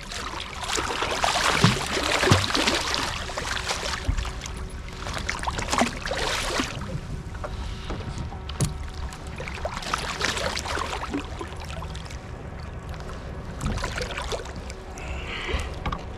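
Water splashing and sloshing around a kayak in recurring bursts, with scattered knocks on the hull.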